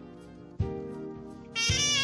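Live gospel band music: kick drum hits about a second apart under sustained chords, with a saxophone coming in loudly near the end on a high, wavering held note.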